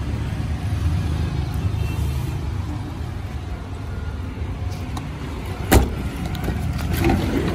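Steady low rumble with one sharp knock a little under six seconds in, and a few faint ticks around it.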